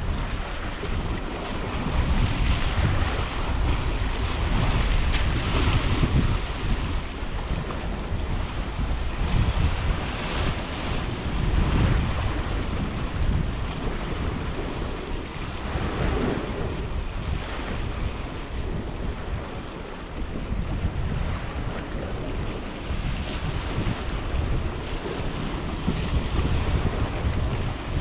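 Wind buffeting the microphone over the wash of sea waves on the shore. The rumble swells and eases unevenly every few seconds.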